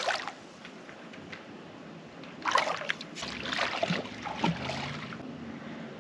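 Water splashing and sloshing in a few short bursts about halfway through, with quieter lapping on either side.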